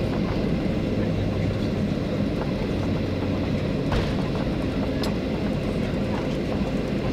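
Steady cabin noise inside a Boeing 737-800 on approach: the even rush of airflow and the CFM56 engines, with a low hum that stops about four seconds in.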